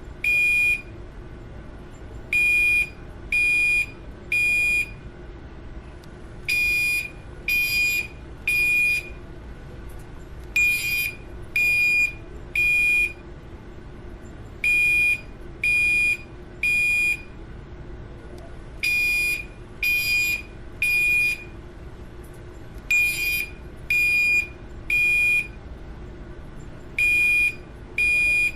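Building fire alarm sounding the temporal-three evacuation pattern: three high-pitched beeps in a row, then a pause, the group repeating about every four seconds. A faint steady hum runs underneath.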